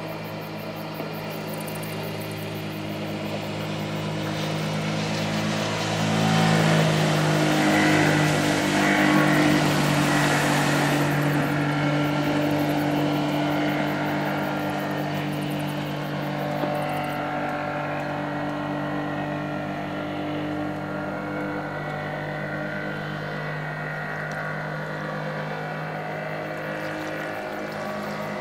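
Honda BF50 four-stroke outboard motor running steadily at speed while towing a water skier, growing louder as the boat passes closest about seven to ten seconds in, then fading slowly as it moves away.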